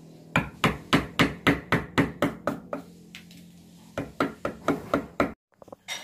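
A wood chisel being struck with a hammer, cutting the shallow recess for a door latch plate into the edge of a wooden door: a steady run of about ten sharp taps, about four a second, a short pause, then six more that cut off suddenly a little after five seconds in.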